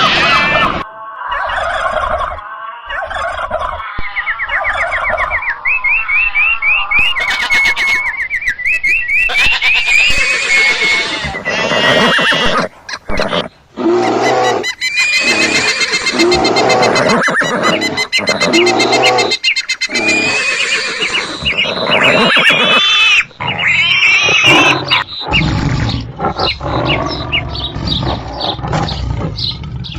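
A string of different animal and bird calls, one after another, each cutting off abruptly and giving way to the next every few seconds.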